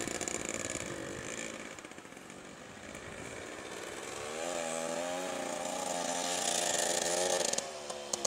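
Mini bike's small engine running, quieter at first as it rides off. About four seconds in it grows louder with a wavering, rising and falling pitch as the rider works the throttle and comes back.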